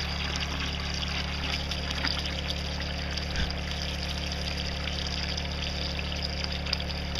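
Well water pouring steadily from an electric pump's pipe into a bucket of beer, over the steady low hum of the generator powering the pump.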